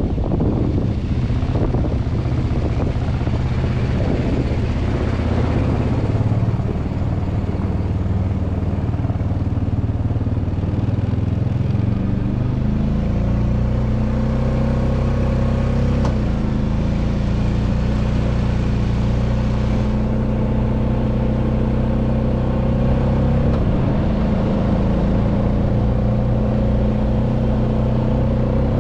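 ATV engine running steadily while riding; about twelve seconds in its note steps up to a higher pitch and holds there.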